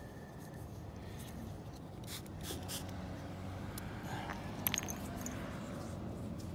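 Small pump spray bottle spritzing liquid onto a dug-up buffalo nickel to show its date: three quick hissing sprays about two seconds in. About two-thirds of the way through the coin gives a light metallic clink, over a steady low hum.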